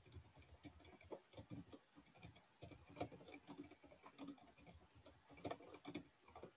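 Faint computer keyboard typing: an uneven run of quick key clicks, several a second.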